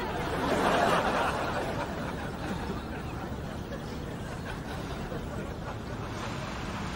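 Audience laughing, loudest about a second in, then dying down to a steady background hiss.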